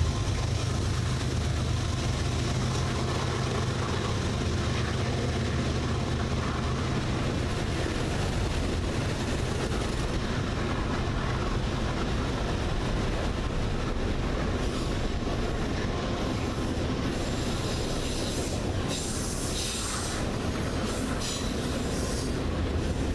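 Freight train of autorack cars rolling past, a steady rumble of steel wheels on rail. The low hum of the locomotive that has just passed fades over the first several seconds. Short bursts of higher-pitched wheel noise come and go in the second half.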